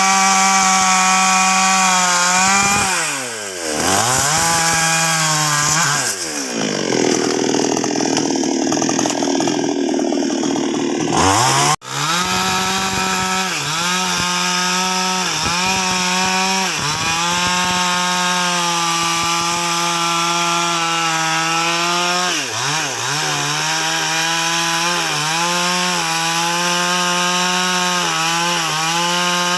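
Nwesst 628 two-stroke chainsaw running at high revs while cutting through sengon logs. Its pitch sags and recovers again and again as the chain bites. It drops low and revs back up about three to six seconds in, and cuts out abruptly for an instant near the middle.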